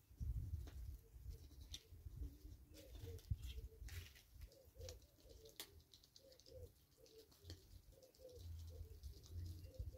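Doves cooing, a string of short low notes repeating from about three seconds in. Under them is a low rumble and faint ticks as geese peck at grain on the ground.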